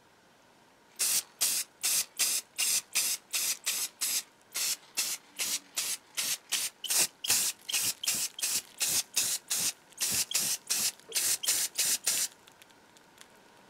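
Spray paint hissing out in short, quick bursts, about three a second, stopping about twelve seconds in.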